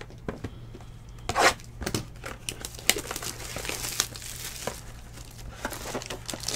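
Clear plastic wrapping on a Topps Tier One baseball card pack being torn and peeled off by hand: one louder rip about a second and a half in, then continuous crinkling.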